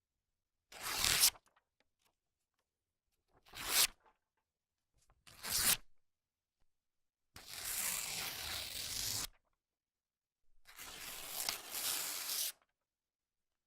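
20 lb printer paper ripped by hand, five separate tears: three quick rips that build to a sharp finish, then two longer, slower rips of about two seconds each.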